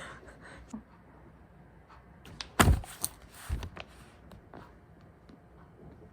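Two dull thuds about a second apart, the first the loudest, with a few light clicks and handling knocks around them.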